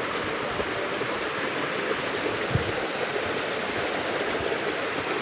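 River water rushing over big stones in a steady, even rush, with a low bump about two and a half seconds in.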